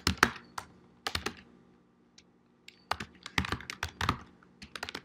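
Typing on a computer keyboard: a few keystrokes, a pause of about a second and a half, then a quicker run of keystrokes.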